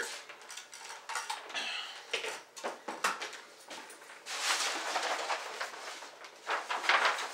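Handling noises: scattered light clicks and knocks, then about two seconds of rustling, as a paper target sheet is fetched and handled.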